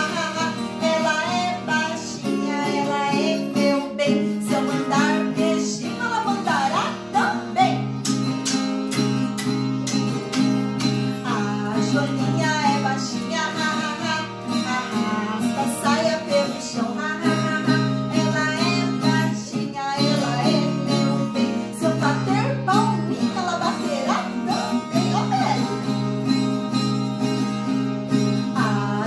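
A woman singing a children's song to a strummed acoustic guitar.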